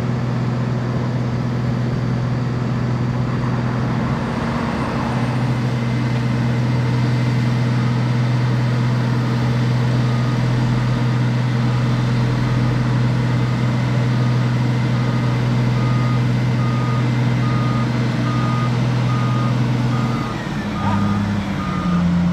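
Heavy diesel engines of road-resurfacing machinery, a cold milling machine and a Volvo L60G wheel loader, running in a steady low drone. A reversing alarm beeps steadily from about halfway through, and near the end the engine note drops and shifts pitch as a machine changes speed.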